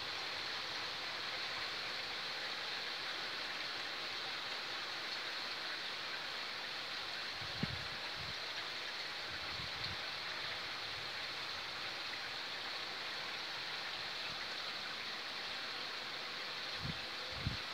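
Steady rain falling, an even hiss, with a few soft low thumps around the middle and near the end.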